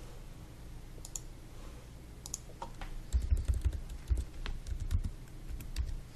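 Typing on a computer keyboard: a few scattered key clicks, then a quick run of keystrokes from about three seconds in, each with a low thud.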